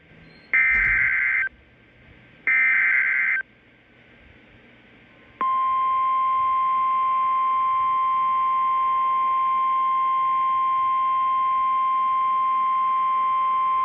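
NOAA Weather Radio's Specific Area Message Encoding (SAME) alert header: two raspy digital data bursts about a second long and a second apart. After a short pause comes the 1050 Hz weather radio warning alarm, a single steady tone starting about five seconds in. Together they mark the start of a new warning broadcast, here a severe thunderstorm warning.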